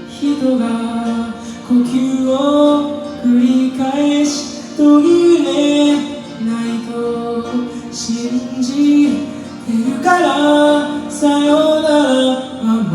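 A teenage boy singing a Japanese pop ballad in a high voice over backing music, the sung melody moving note to note.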